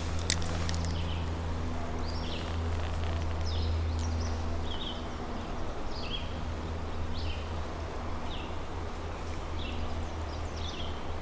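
A creek running steadily, with a bird repeating short high chirps about once a second. A single sharp click comes just after the start.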